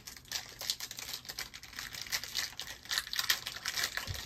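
Trading cards and their packaging being handled: a dense run of small clicks, rustles and crinkles as cards are flipped through.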